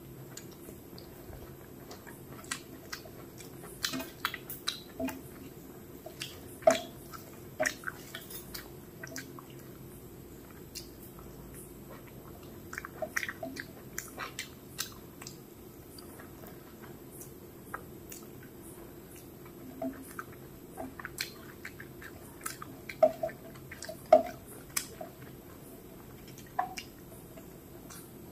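Close-miked mouth sounds of a person chewing handfuls of rice and curry eaten by hand: wet chewing with sharp clicks and smacks that come in bursts, with quieter pauses between mouthfuls.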